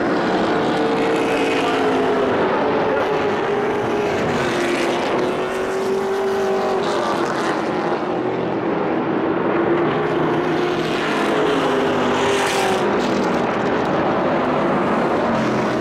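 Several race trucks' engines running at speed on a short oval, their engine notes rising and falling as the trucks go by.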